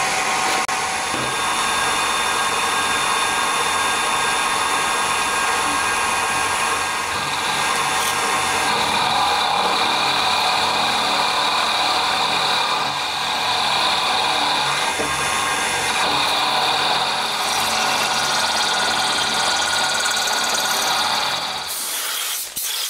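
Milling machine running an end mill down into an aluminium cylinder head, widening 8 mm pilot holes to 10 mm for the inlet ports: a steady whine and cutting hiss that stops shortly before the end.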